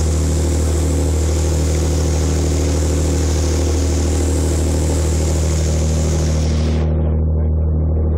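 Small passenger ferry's engine running steadily underway, a deep, even drone with a steady hiss over it. The hiss drops away for about a second near the end.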